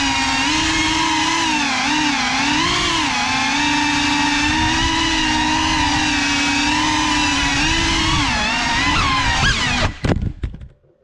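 Small FPV drone's electric motors and propellers whining, the pitch rising and falling as the throttle changes. About ten seconds in, a few knocks as the drone crashes, and the motors cut out.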